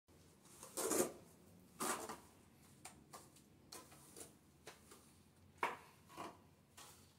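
Steel trowel scraping through tile adhesive on a concrete floor: short, irregular strokes, the loudest about a second in.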